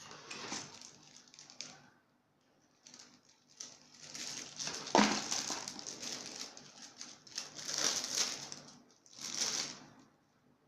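Handling noise: a few bursts of rustling and crinkling with short pauses between them, and one sharp knock about five seconds in.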